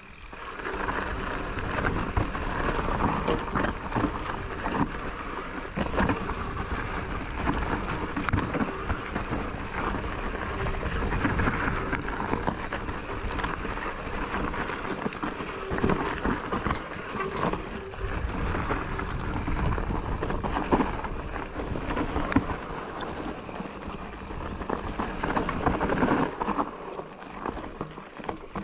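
Mountain bike descending a rough, rocky singletrack, recorded on an action camera: constant tyre noise over dirt and rock with frequent knocks and rattles from the bike, and wind rumble on the microphone.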